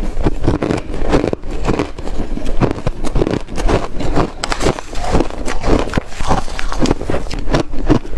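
A person biting and chewing ice close to the microphone: a continuous run of crisp crunches, several a second.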